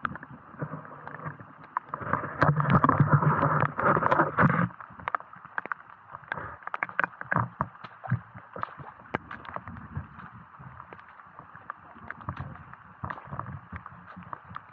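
Heavy rain, with drops tapping irregularly and sharply on the camera, and water sloshing and gurgling underfoot along a flooded forest trail. A louder stretch of splashing and rushing water comes about two to five seconds in.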